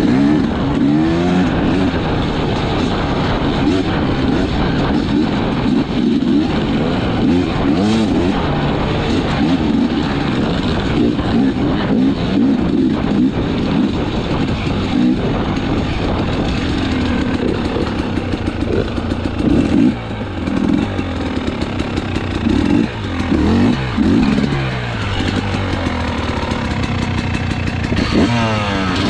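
Dirt bike engine running under load on a trail, its pitch rising and falling again and again as the throttle is rolled on and off, with occasional knocks and clatter from the bike.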